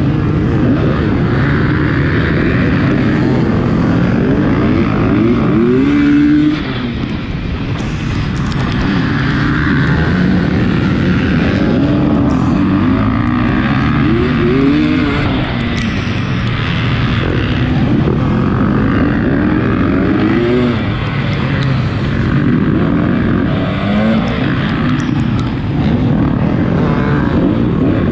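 Off-road motorcycle engine being ridden hard, its pitch climbing and dropping every second or two as the throttle opens and closes, with a brief dip in level about six seconds in.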